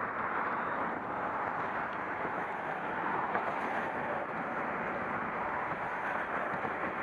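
Steady rushing road and wind noise of highway traffic heard from a motorcycle, with no distinct knocks or engine note.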